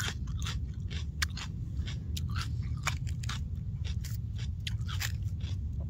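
A person chewing a raw sweet pepper close to the microphone: a quick, irregular run of crisp crunches from the juicy, crunchy flesh.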